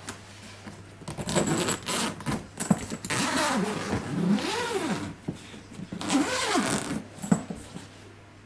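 A travel bag being unzipped and unpacked: long rasping zip pulls, some rising and falling in pitch, with rustling and handling of the contents.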